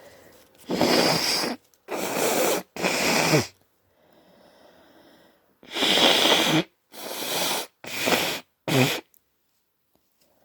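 A congested person forcing air hard through a blocked, runny nose: seven strong bursts spread over about eight seconds, with a softer breath between them about four seconds in. The nose is stuffed up from hayfever and a cold.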